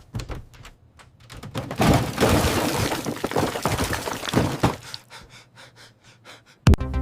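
Desserts tumbling and crashing out of a fridge: scattered knocks and splats swell into a dense crashing clatter for about three seconds, then thin out to a few scattered knocks. Music starts abruptly just before the end.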